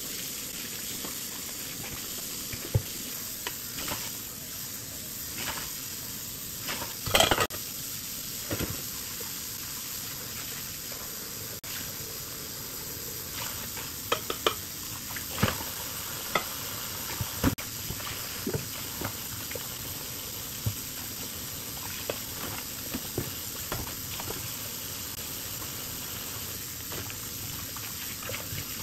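Kitchen tap running steadily into a sink of dishes, while pots, a frying pan and a glass lid knock and clatter as they are rinsed. The loudest clatter comes about seven seconds in, with a run of knocks about halfway through.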